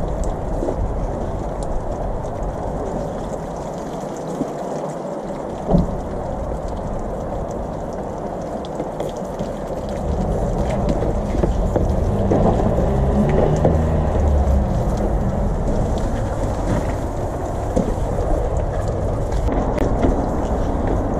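Water-fed pole brush scrubbing window glass and frames while its jets spray water: a steady wash of brushing and water noise, with a single knock about six seconds in.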